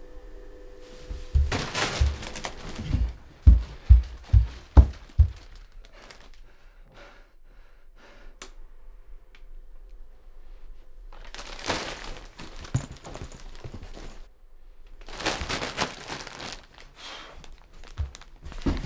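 Plastic and cloth laundry bags rustling and crinkling as they are handled, with a run of five dull thumps, about two a second, early on.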